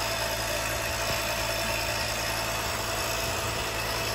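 Homemade smoke machine running with a steady low hum, pushing smoke into the engine for a vacuum-leak smoke test.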